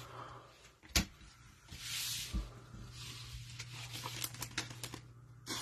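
Trading cards handled on a tabletop: a sharp tap about a second in, then a brief rustling swish and a soft thump, with a few light clicks near the end. A steady low hum runs underneath.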